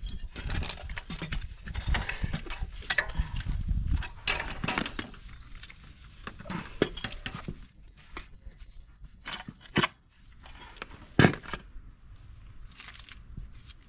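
Irregular knocks and clicks of tools and metal parts being handled during work on a motorcycle's rear swingarm, with one sharper knock about eleven seconds in.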